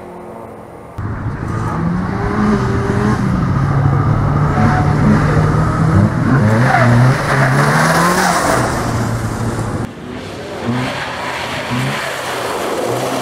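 Peugeot 106 rally car's engine pulling hard through the corners, its pitch repeatedly rising and falling as the driver accelerates, lifts and changes gear. The sound jumps abruptly about a second in and again near ten seconds as the camera position changes.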